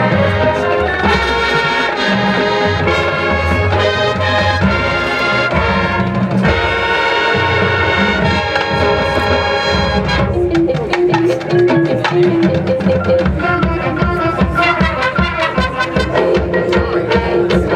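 High school marching band playing its field show: full brass with trumpets and trombones over drums. About ten seconds in, the loud brass drops away, leaving a lighter, rhythmic passage with drums.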